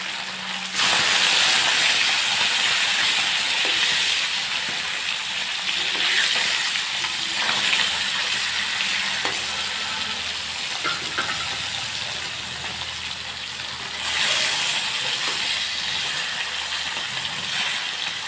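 Whole small fish dropped into hot mustard oil in a kadai, sizzling loudly as they hit the oil about a second in. The frying sizzle runs on and swells again about fourteen seconds in.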